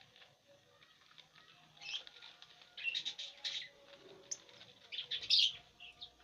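Fischer's lovebirds chirping in short bursts, about three times, the loudest about five seconds in, mixed with the dry crackle of corn husk being torn for nest material.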